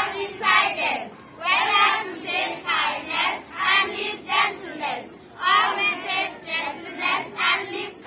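A group of schoolchildren singing together in unison, in short phrases with brief breaks between them.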